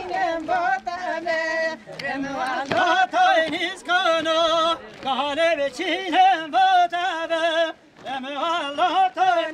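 Folk dance music with a wavering, heavily ornamented melody line.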